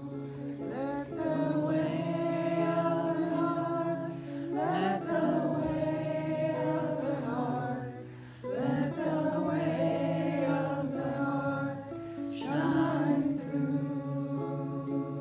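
Music with sung vocals over sustained, held notes.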